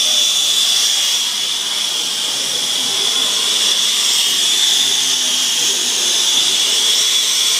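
Plumber's soldering torch flame burning with a steady hiss while heating a copper pipe joint for sweating.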